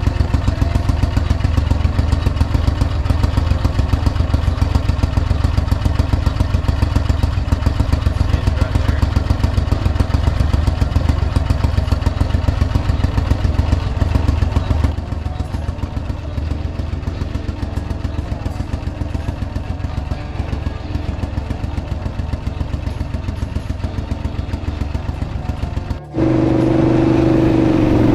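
Small boat motor running steadily with a fast, even firing pulse. About halfway through it gets quieter; near the end it breaks off suddenly and a louder, steadier engine hum with clear tones takes over.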